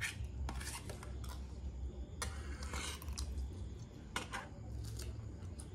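Metal spoons and forks scraping and clinking against a metal serving tray of rice, in short irregular strokes, over a faint low hum.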